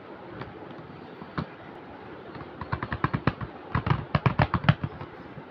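A cardboard box of colour pencils being handled by hand: a couple of single clicks, then from about halfway a quick run of sharp clicks and taps, several a second, for about two seconds.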